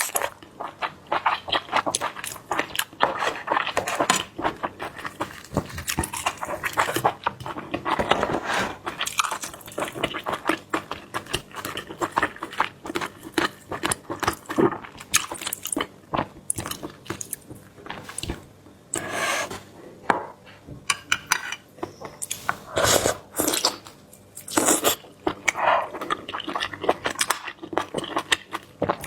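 Close-up chewing and eating of seafood: a steady run of wet mouth smacks, bites and crunches, with a few louder, longer smacks about two-thirds of the way through.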